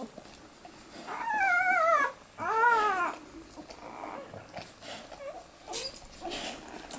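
Newborn Australian Shepherd puppy crying: two high-pitched squealing cries, the first wavering and falling about a second in, the second rising and falling just after it.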